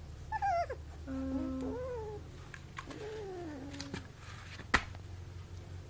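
Young Labrador–golden retriever puppy whining: three high, wavering cries, each sliding down in pitch, over the first four seconds. A sharp knock follows, the loudest sound, over a low steady hum.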